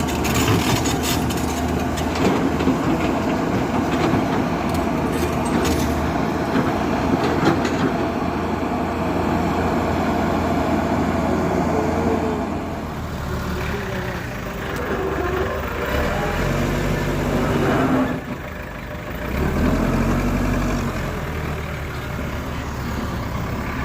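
Diesel engine of a JCB 3DX backhoe loader running, with clanking knocks in the first several seconds. In the second half the engine speed shifts down and up, with a brief lull near the 18-second mark.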